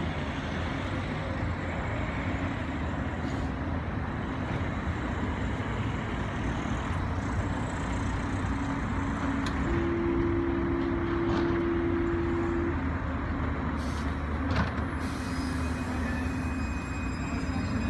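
Grenoble tram standing at a stop, its onboard equipment humming steadily over street noise. A steady tone sounds for about three seconds midway, and a sharp click comes near the end.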